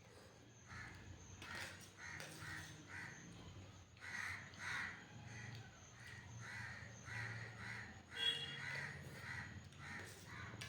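Crows cawing over and over, a few harsh caws a second, with one louder call about eight seconds in.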